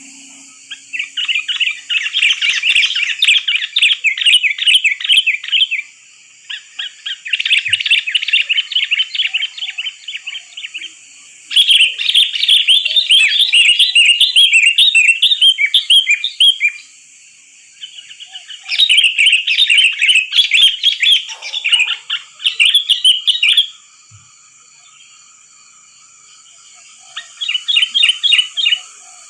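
Sooty-headed bulbul (kutilang) singing in repeated bouts of rapid, chattering notes, each bout lasting a few seconds with short pauses between. A steady high-pitched hiss runs underneath.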